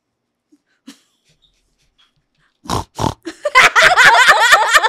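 A person imitating a pig or boar: two short snorts a little under halfway through, then a quick run of high, wavering squeals.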